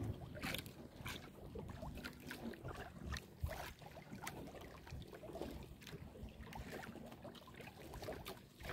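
Choppy sea water lapping and slapping against the hull of a small outrigger boat, with irregular light clicks and rustles from a nylon gill net being hauled and handled.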